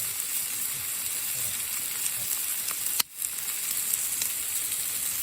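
Food frying in a bushcraft campfire frying pan: a steady sizzling hiss with small scattered pops. A sharp click about three seconds in, followed by a momentary drop in the sound before the sizzling resumes.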